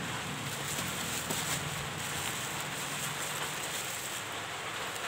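Black plastic wrapping crinkling and rustling steadily as hands handle and pull at it.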